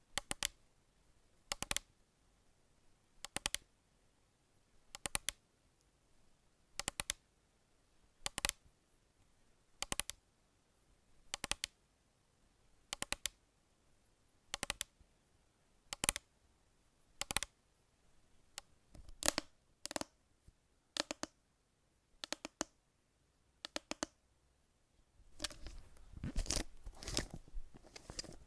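Crisp, close-up ASMR handling sounds: short sharp double crackles repeating evenly about every one and a half seconds, giving way near the end to a denser stretch of crinkly rustling.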